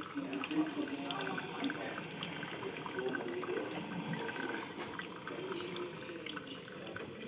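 Water running into a container, filling it.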